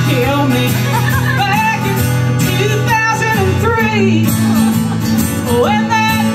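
A woman singing a country song with acoustic guitar accompaniment, holding several long notes with a slight waver.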